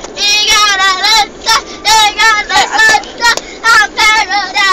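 A young boy singing with no backing, in a high voice, phrase after phrase, with wavering held notes.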